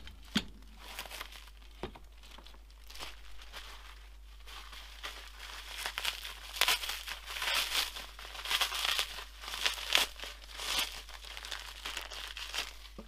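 Plastic packaging, bubble wrap and a clear plastic bag, rustling and crinkling as parts are pulled out of a cardboard box. The crinkling grows busier about five seconds in. Near the start there are a couple of light knocks as a metal stand leg is set down.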